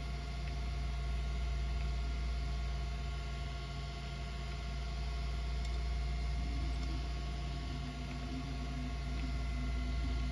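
3D printer running: a steady hum and fan noise with several faint, steady whine tones, and a faint wavering low tone joining in over the last few seconds.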